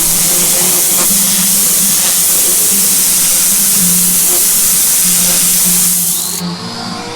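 Lavor pressure washer spraying through its turbo jet rotating nozzle onto a ramp: a loud, steady hiss of high-pressure water that cuts off about six seconds in when the trigger is released.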